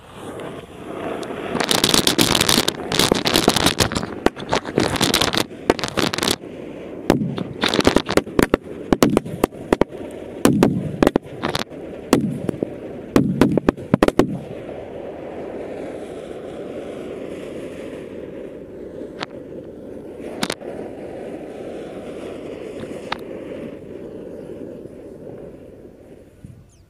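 Diwali firecrackers (sutli bombs, bullet bombs and bijli crackers) set off by a lit chakri: a hiss as the chakri takes light, then a rapid, irregular string of loud bangs for about twelve seconds as the crackers catch one after another. After that a steady burning hiss, broken by a few single bangs, fades out near the end.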